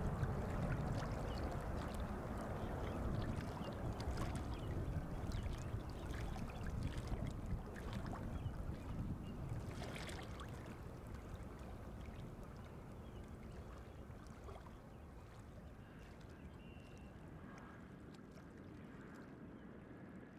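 Airbus A380 jet engines rumbling steadily, the sound slowly fading as the airliner moves away.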